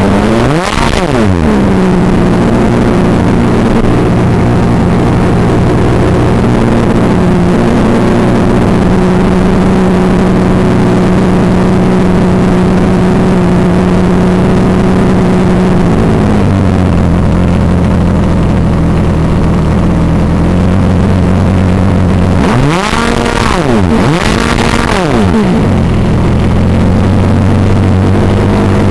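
O.S. 46 AX two-stroke nitro glow engine of an RC plane, heard close up through the plane's onboard FPV camera microphone. It runs steadily at part throttle, drops to a lower idle about halfway through, and is revved up and back down twice near the end before settling at idle again.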